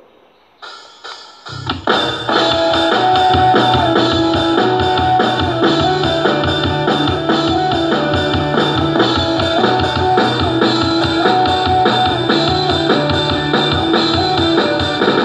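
Drum kit sounds from a phone's Real Drum app tapped by hand. After a few single hits, a rock backing track with guitar comes in about a second and a half in and the drumming carries on over it at a steady beat.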